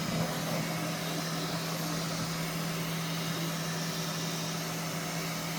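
Bambu Lab P1S 3D printer running mid-print: a steady mechanical hum with a constant low tone.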